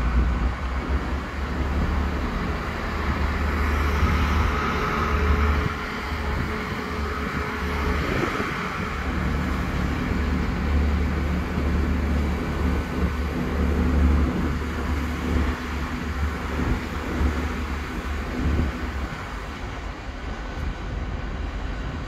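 Diesel trains running at a railway platform: a low, pulsing engine rumble as a local diesel multiple unit pulls through behind the platform. The rumble fades away near the end.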